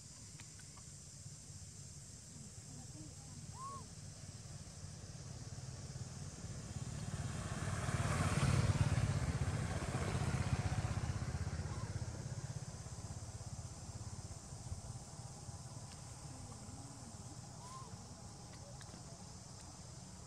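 A motor vehicle passing along the road: its engine and tyre noise grow over several seconds, are loudest about eight to nine seconds in, and then fade away over a steady low rumble.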